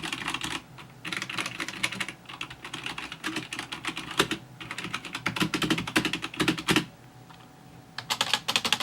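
Typing on a Cooler Master CM Storm Devastator II membrane gaming keyboard: irregular runs of keystrokes with short gaps, a brief pause near the end and then a quicker run. The sound is pretty plasticky.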